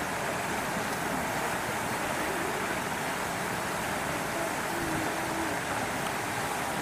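Steady rushing outdoor background noise at an even level, without distinct events.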